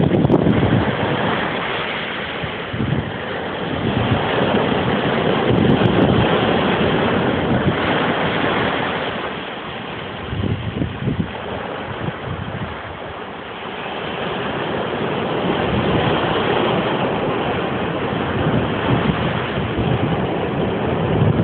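Ocean surf breaking over shoreline rocks and washing up onto a sandy beach, a continuous rushing that swells and eases, dropping quieter about halfway through before building again.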